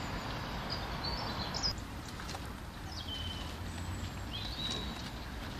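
A few short bird chirps, gliding in pitch and well spaced, over a steady low outdoor rumble.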